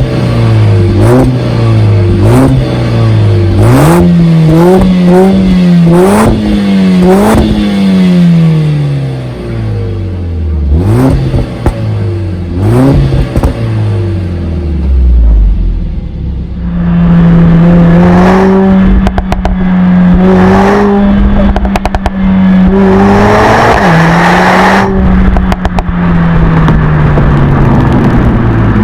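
Stage 1 tuned Mercedes-AMG A45 S 4MATIC+'s turbocharged 2.0-litre four-cylinder being revved in a string of quick blips, each rise and fall followed by sharp exhaust pops. About halfway through, it is held at high revs for several seconds at a time, with rapid crackles and bangs from the exhaust.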